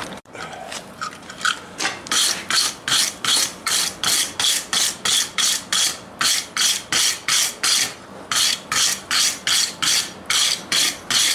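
Hand wire brush with a wooden block back scrubbed back and forth across red-hot forged steel on the anvil, a fast run of scraping strokes about three a second that starts about a second in. It is brushing the scale off the hot steel.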